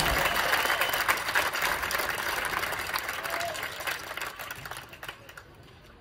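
Audience applause: many hands clapping, dying away steadily and almost gone by about five seconds in.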